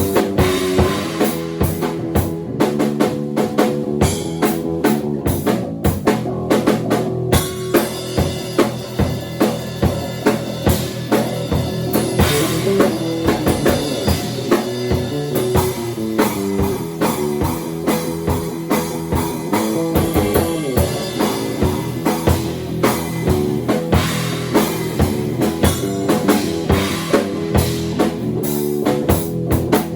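A bass guitar and a drum kit improvising together: busy, steady drumming over a bass line that moves up and down in pitch.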